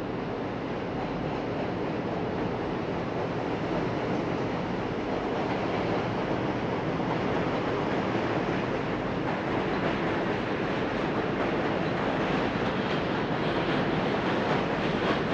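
Steady rushing noise of a passenger ferry underway, engine drone mixed with water rushing past the hull, growing slowly louder.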